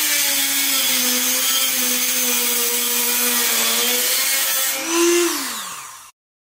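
Electric grinder running steadily under load against the steel body panel of a 1972 Chevy Nova, grinding out old trim nails. About five seconds in it comes off the work: the motor briefly speeds up, then winds down, and the sound cuts off abruptly.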